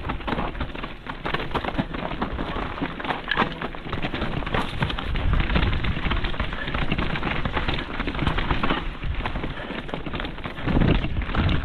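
Mountain bike ridden fast down a dirt trail: a dense crackle of tyres over loose ground and stones, with the bike rattling, louder around the middle and again near the end.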